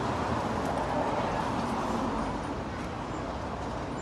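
Steady outdoor street noise with traffic, with no distinct events.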